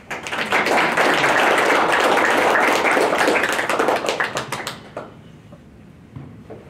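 Audience applauding: a dense patter of many handclaps that swells within the first second, holds, and dies away about five seconds in.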